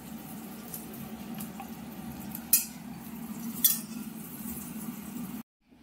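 Two short clinks of cutlery or dishes, about two and a half and three and a half seconds in, over a steady low hum. The sound cuts out abruptly near the end.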